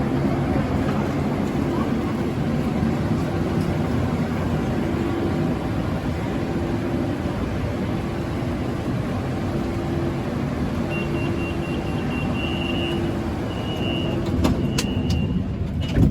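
BTS Skytrain electric train running: a steady rumble with a hum that comes and goes, and near the end a thin high whine in short spells with a few clicks.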